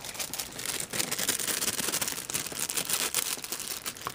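Close rustling and crackling handling noise, a dense run of small clicks starting about a second in and easing off near the end.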